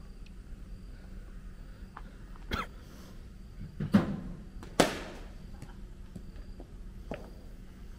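Cricket net practice against a bowling machine: a few sharp knocks of ball, bat and net. The loudest are two knocks less than a second apart near the middle, the second trailing off briefly.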